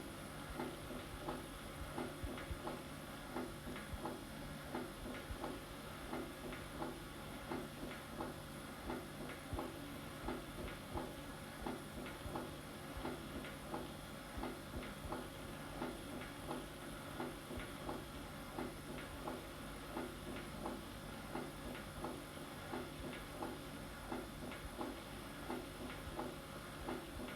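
Heart sounds of mitral stenosis: a regular heartbeat in which each beat is followed by an opening snap and a low, rumbling mid-to-late diastolic murmur.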